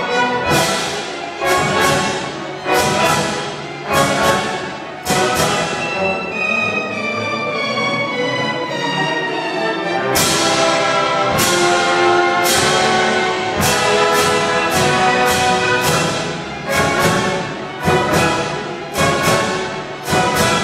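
Live symphony orchestra, strings to the fore, playing a classical piece. Short, accented full-orchestra chords strike about once a second, give way to a smoother held passage in the middle, then return.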